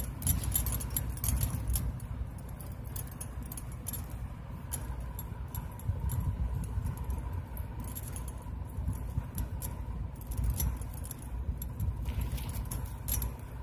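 Plastic basket-weaving wire rustling and clicking as strands are pulled through and knotted by hand, a stream of small irregular clicks over a low steady rumble.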